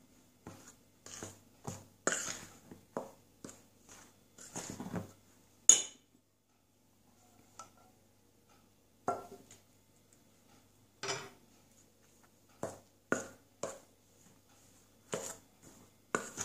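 Steel spoon scraping and clinking against a stainless steel bowl while stirring a dry, crumbly powder mix, in irregular strokes. The sharpest clink comes about six seconds in, followed by a pause of about three seconds before the stirring resumes.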